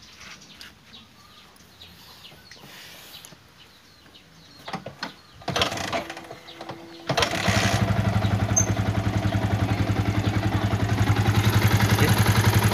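Yamaha Vixion motorcycle's single-cylinder engine starting a little past halfway, after a couple of short bursts, then idling with an even, rapid pulse. The owner presents this new engine as noisy, with a rattle ('brisik', 'kretektek').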